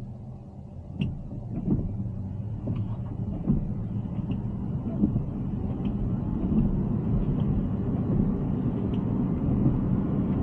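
Road and tyre noise inside the cabin of a Tesla Cybertruck driving on wet roads: a steady low rumble that grows slightly louder, with occasional faint ticks.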